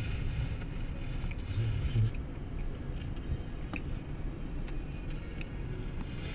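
Car driving along a paved road, heard from inside the cabin: a steady low rumble of engine and tyres with a few faint clicks.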